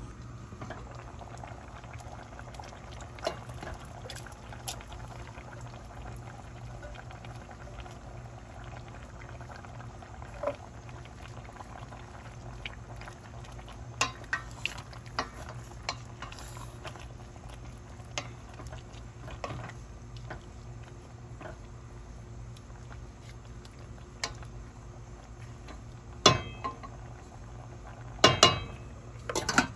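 Chicken and pineapple stew simmering in a pot: steady bubbling with many small pops. Several louder sharp knocks near the end.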